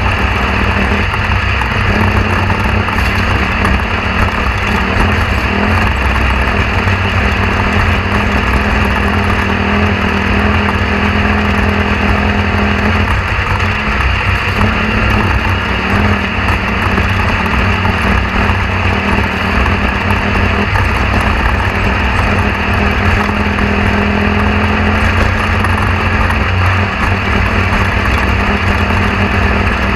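A steady, loud mechanical drone with a constant low hum that barely changes throughout.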